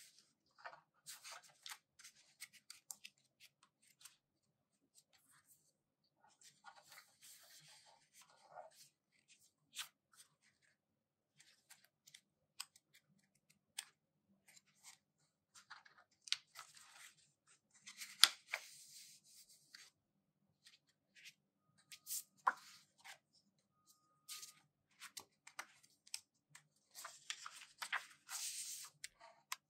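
Glossy pages of a thick photo book being turned by hand: faint paper rustles and slides in several short bursts, the loudest a little past halfway through.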